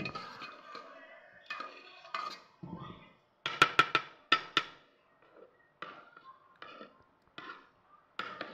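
Spoon spreading béchamel sauce over pasta in a metal baking pan, with a quick run of about five sharp knocks of the spoon against the pan around the middle.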